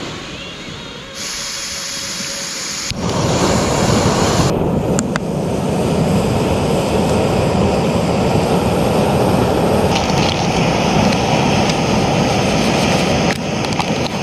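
Portable butane camping stove with a hose-fed canister burning at full flame: a loud, steady rush that starts abruptly about three seconds in, with a quieter stretch before it.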